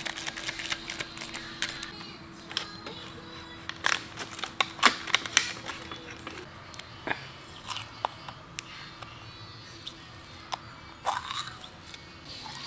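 Background music over sharp, irregular clicks and clinks of hand tools and metal parts as a small-block Chevy 350 is assembled, with plastic packaging crinkling around the middle.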